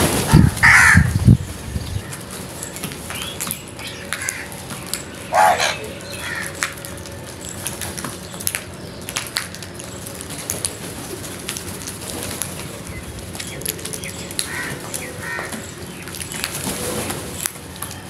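House crows flapping in to land, a burst of wingbeats in the first second or so, followed by scattered caws. The loudest caw comes about five seconds in, with small clicks in between.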